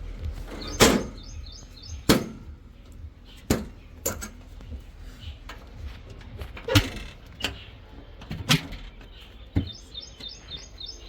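A bird chirping in quick runs of short high notes near the start and again near the end, with sharp knocks every second or so over a low steady rumble.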